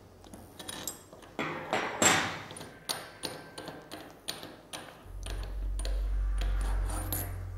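Light clicks and knocks of metal parts being handled as the nose-piece housing of a hydro-pneumatic insert installation tool is unscrewed by hand. A low steady hum comes in about five seconds in.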